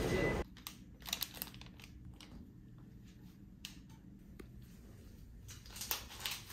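Background music cuts off about half a second in. Then light, scattered clicks and taps of small objects being handled in a quiet small room.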